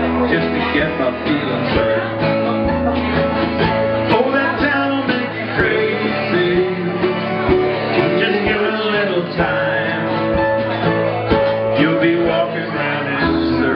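Live acoustic band music: a strummed acoustic guitar and a mandolin with a drum kit, while a man sings.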